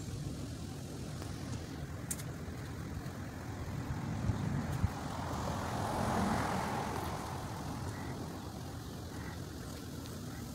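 Motor vehicle running, with a steady low road rumble. A hissy swell rises and fades through the middle, and there is one short knock a little before it.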